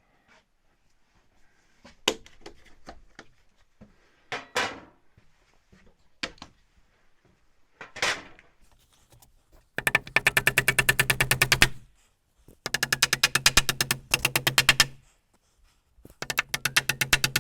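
A few knocks of wood on wood, then a cordless power driver, most likely an impact driver, running three bursts of rapid even hammering, about two seconds each, driving screws into the timber bracing.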